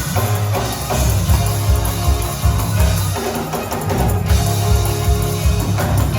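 Live gospel band playing: drum kit keeping a steady beat under sustained bass and keyboard chords.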